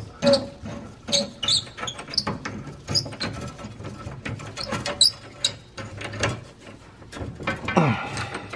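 Small metal clicks, taps and scrapes of hands and tools on the copper refrigerant lines and brass flare fittings of an air handler's TXV as they are worked loose. A short sound falling steeply in pitch comes near the end.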